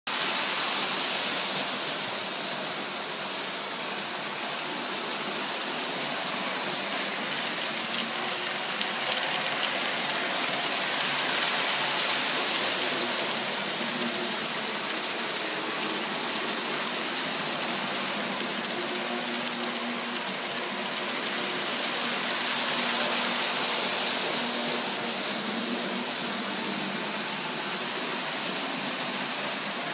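Postwar Lionel 2333 New York Central F3 O-gauge locomotive running with a long freight train: a steady hissing rumble of wheels on the rails with a low hum under it. It grows louder and fades again about every eleven seconds.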